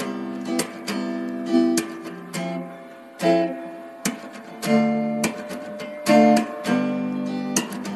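Instrumental background music of plucked string chords, each with a sharp attack that rings out and fades.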